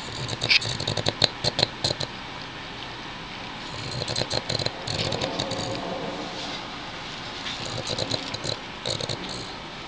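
Boston Terrier snoring while asleep on his back. Three snores come about every three to four seconds, each a quick run of fluttering pulses lasting a second or so.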